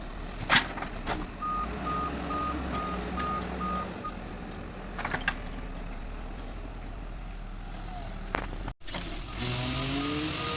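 Doosan 140 wheeled excavator's diesel engine running steadily, with its alarm beeping rapidly at one pitch, a few beeps a second, from about one to four seconds in and again faintly near the end. A few sharp knocks are heard, and after a brief break near the end the engine note rises.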